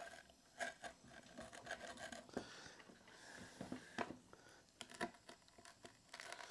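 Faint scraping and light clicks of a pizza cutter being handled and run through a crusty, well-browned pizza on a wooden chopping board, with a few scattered taps.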